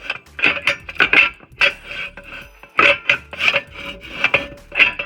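Repeated sharp metallic clanks and scrapes, roughly two to three a second, each with a brief ring, from metal tools and parts being worked while the engine and subframe are lowered onto a jack.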